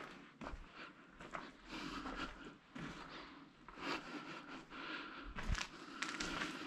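Footsteps crunching and scraping over debris on a concrete floor, an irregular run of short scuffs.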